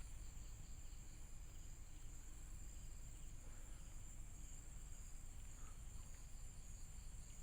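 Insect chorus, crickets and the like, chirring in a steady high drone with a fainter pulsing chirp beneath it.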